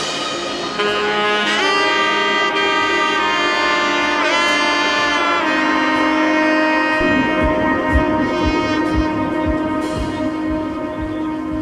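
Background music: a melody of long held notes, one of them wavering, over sustained chords, with a soft low beat coming in about seven seconds in.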